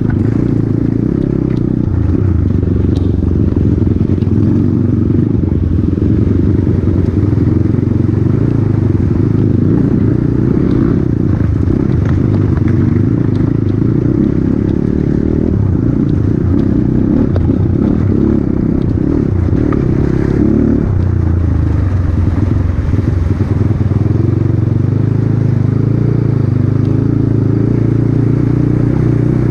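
Off-road motorcycle engine running steadily.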